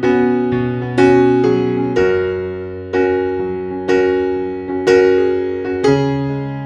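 Background music: slow, gentle electric piano playing sustained chords, a new chord struck about once a second and left to fade.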